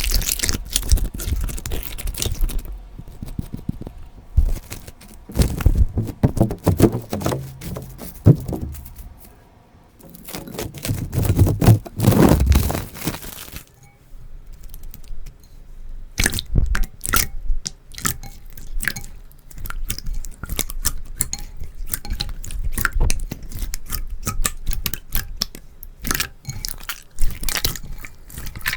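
Slime being squeezed, pressed and pulled by hand: wet, sticky squelching, then a dense run of rapid crackling and popping clicks through the second half.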